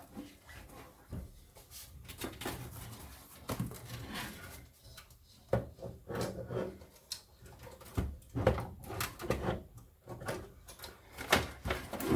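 Irregular clicks, knocks and scrapes of metal and plastic parts being handled and pushed into place as a computer case and its power supply are reassembled.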